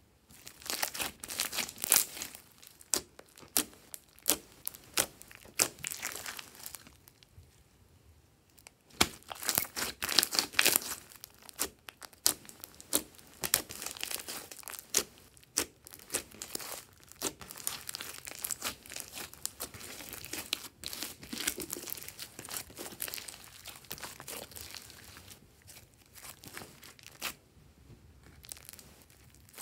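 Hands squeezing, kneading and folding a thick, bubbly slime, giving dense runs of sticky crackles and clicks as it is pressed and pulled, with a couple of short pauses.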